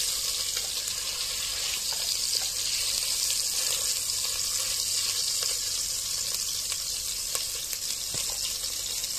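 Chicken fat sizzling steadily in a clay pot as it renders down into cooking oil, with a few faint clicks from the stirring.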